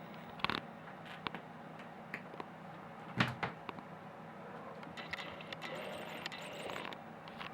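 Scattered knocks and bumps from kittens playing about the room, the loudest thump about three seconds in, over a steady low hum.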